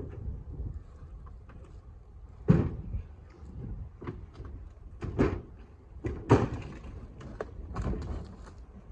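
Irregular knocks and thuds of wood pieces being handled, about four loud ones spaced a second or more apart, over a steady low rumble of wind.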